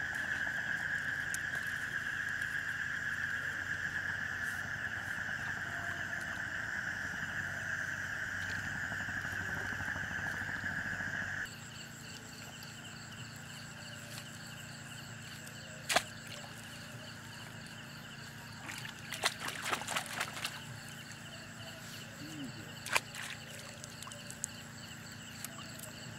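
Steady chorus of night insects, which cuts off abruptly about eleven seconds in and gives way to a quieter, pulsing chorus. Over it come a few sharp knocks, with a quick run of them around twenty seconds in.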